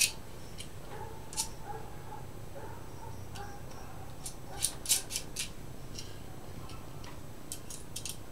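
Scattered light metallic clicks and taps of small hex nuts being handled and started by hand on a Eurorack module's pot and jack threads, coming in small clusters every second or two.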